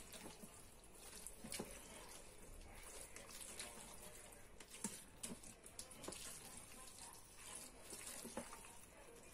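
Faint stirring: a silicone spatula turning spiral pasta through tomato sauce in an electric multicooker's non-stick pot, with small scattered scrapes and soft wet sounds.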